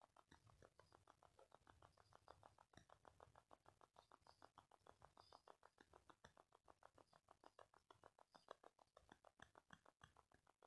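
Near silence: room tone with a faint, even ticking of about five or six ticks a second.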